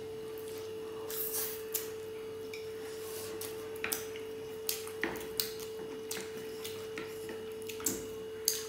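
Two people eating chow mein noodles with wooden chopsticks: scattered short slurps and sucking-in sounds, with light clicks of the chopsticks against the plates. A steady faint tone hums underneath.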